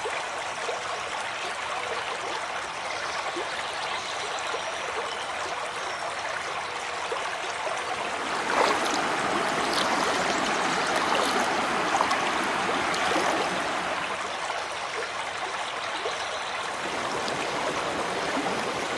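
Shallow rocky forest river rushing and burbling over stones, a steady wash of water that grows louder for several seconds about halfway through.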